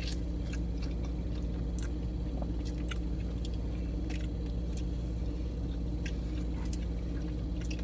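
Close-up eating sounds: scattered wet clicks and smacks of chewing a seafood boil, over a steady low hum.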